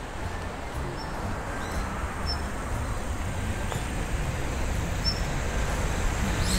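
A low rumble that slowly grows louder, with a few faint, short, high bird chirps a second or so apart.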